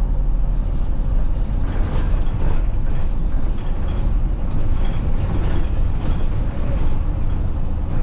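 Inside a moving route bus: the engine runs steadily under road noise, with frequent small rattles and clicks from the cabin fittings.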